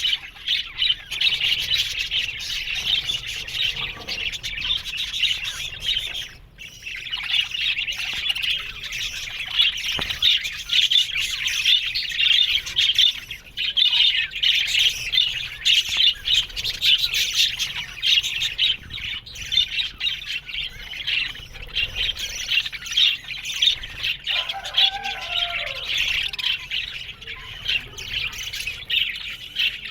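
A flock of budgerigars chattering and warbling, a dense, continuous mass of chirps and squawks. About three-quarters of the way through, a lower, wavering squawk stands out over the chatter.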